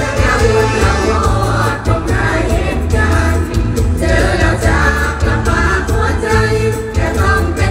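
Live Isan mor lam band music played loud through a large concert sound system: singing over a heavy, booming bass beat.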